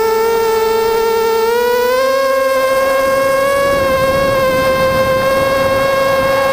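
Quadcopter's brushless motors and propellers flying with a steady high buzzing whine. The pitch rises about one and a half seconds in as the throttle goes up, and a low rushing noise joins underneath from about three seconds in.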